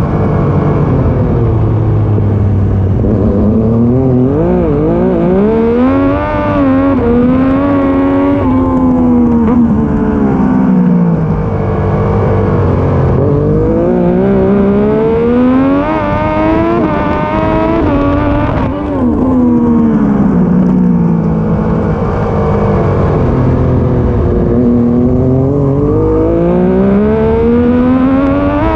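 Triumph Daytona 675 inline three-cylinder engine at racing speed, revving up through the gears in steps and dropping away on braking, again and again.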